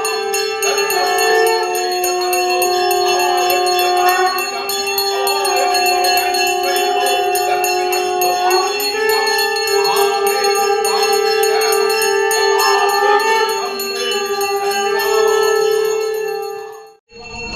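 Brass puja hand bell rung continuously, giving a steady ringing with many overtones, as it is sounded during worship while water is offered to the deity. The ringing cuts off abruptly about half a second before the end.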